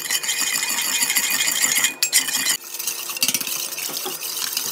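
Metal spoon stirring fast in a steel pot, scraping and rattling against the metal. The noise is loud and continuous, with a short break about two and a half seconds in.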